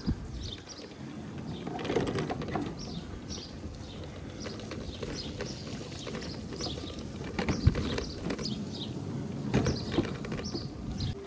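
Kymco Mini LS mobility scooter driven over bumps, jolting with a few loud knocks: one about two seconds in and two more near the end. Birds chirp all through.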